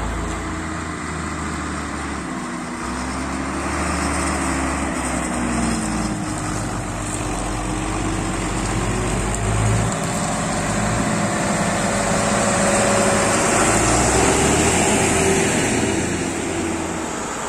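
Diesel engines of large farm tractors, a Case IH Quadtrac among them, running steadily, with the engine pitch rising and falling as they work and move.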